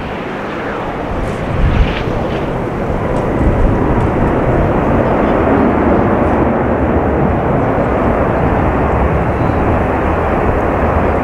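McDonnell Douglas MD-11 jet engines running loudly during the landing rollout, a steady rushing noise, with a thump about two seconds in.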